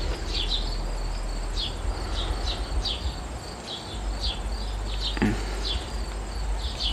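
Outdoor animal chirping: many short high chirps, each falling slightly in pitch, come irregularly about two or three times a second over a low steady rumble.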